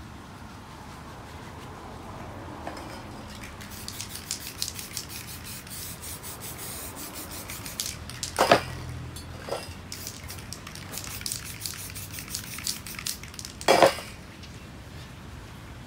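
Aerosol spray-paint can spraying in many short bursts, with two loud knocks about halfway through and near the end.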